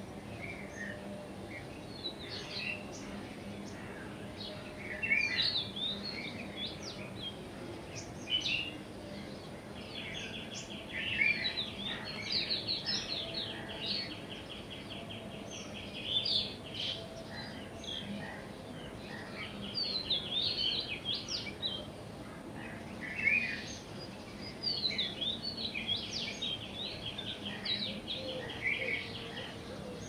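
Several songbirds singing and chirping: many short, high chirps and calls, with a fast, even trill that comes three times.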